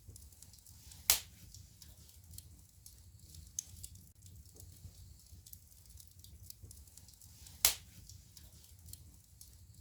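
Wood fire burning in a fireplace: a low steady rumble under light scattered crackling, with two loud sharp pops, about a second in and near the end.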